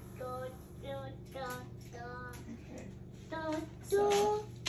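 A child's high voice singing short notes, with a low steady hum underneath.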